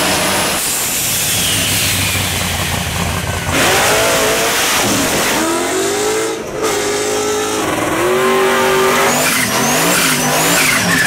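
High-performance car engines revving hard, their pitch climbing and dropping with each rev, with loud exhaust noise and tyre squeal. The sound is several clips cut together, changing abruptly twice.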